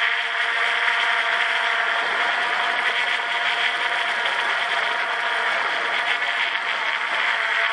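Quadcopter drone's electric motors and propellers whining steadily in flight, heard from a camera mounted right under the rotors: a dense hum with several held tones, shifting slightly in pitch near the end.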